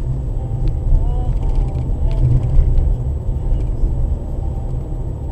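Car driving, heard from inside the cabin by a dashboard camera: a steady low engine and road rumble, with a couple of faint clicks or rattles.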